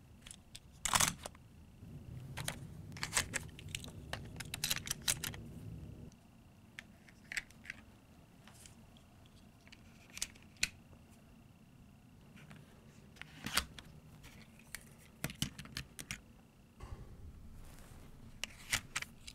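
Die-cast toy cars and plastic Hot Wheels Trick Tracks launcher parts clicking and clacking as they are loaded and the triggers set, a scatter of light irregular clicks with a soft low rumble of handling about two to six seconds in.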